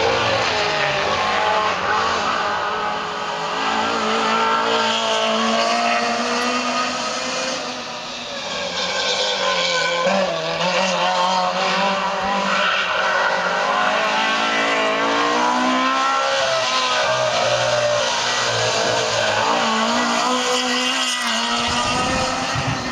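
Opel Ascona 400 rally car's four-cylinder engine at full throttle on a hill climb, its pitch rising and dropping again and again as it changes gear through the bends.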